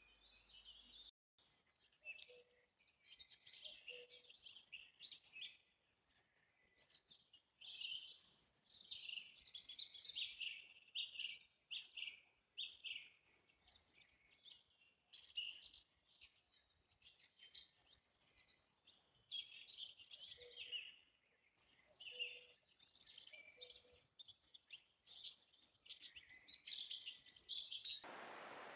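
Woodland birds singing, several songbirds overlapping in a busy chorus of short chirps and trills, with a few faint lower calls now and then. A steady hiss takes over near the end.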